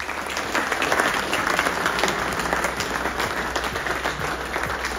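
Audience applauding: many hands clapping at once, building over the first second and then holding steady.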